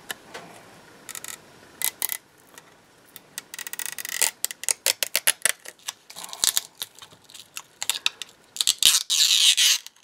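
Adhesive film crackling and tearing as it is peeled off an iPhone 6 Plus's metal plate: irregular runs of sharp crackles, with a longer tearing rasp near the end.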